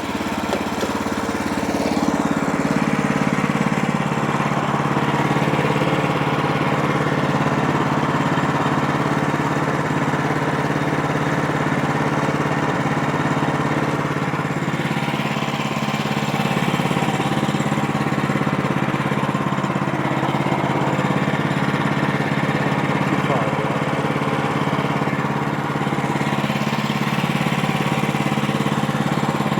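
Woodland Mills HM130MAX bandsaw mill's gasoline engine running steadily while the mill saws through a pine log. About two seconds in, its pitch drops slightly and it gets louder, then it holds steady.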